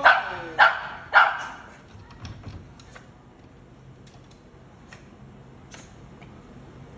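Shih Tzu barking three times in quick succession in the first second and a half, then falling quiet apart from faint taps. The barking is a small dog wanting to go with its owner.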